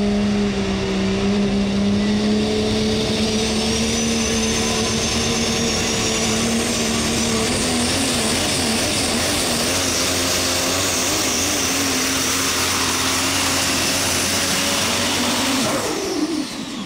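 Super stock diesel pulling truck's engine running hard under load, with a high turbocharger whistle that climbs over the first half. About a second before the end the engine note drops sharply as it comes off the throttle.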